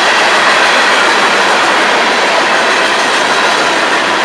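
Florida East Coast Railway freight train's open-top hopper cars rolling past close by: a steady, loud noise of steel wheels running on the rails.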